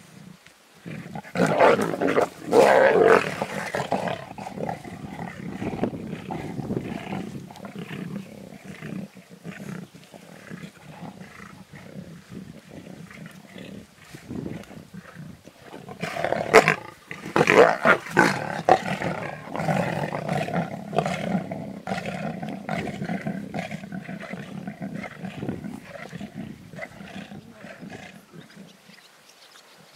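Lions snarling and growling at each other while feeding on a wildebeest carcass, a sign of squabbling over the kill. Loud snarling outbursts come about a second in and again about halfway through, with lower growling between them.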